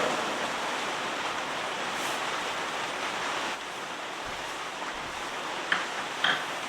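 Steady rushing noise of heavy rain and fast-running floodwater, with two brief clicks about half a second apart near the end.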